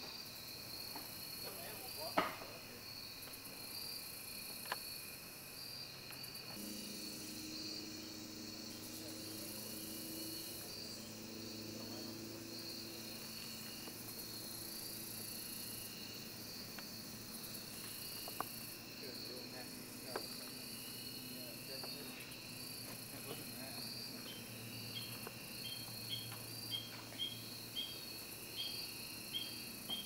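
Late-summer insect chorus of crickets chirping steadily in a high, evenly pulsing drone, with a run of short chirps about two a second near the end. A single sharp click about two seconds in is the loudest sound, and a few softer clicks follow.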